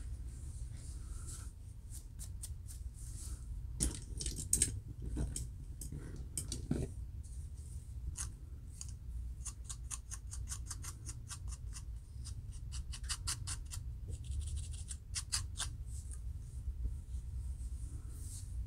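A fine-toothed metal comb scraping across a dry, flaky scalp between locs to lift dandruff, in many short strokes that come in quick runs of about five a second, over a steady low hum.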